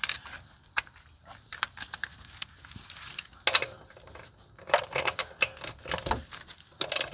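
Irregular small clicks, rattles and rustles of metal hand tools being handled, thickest in a cluster past the middle, with no impact wrench running.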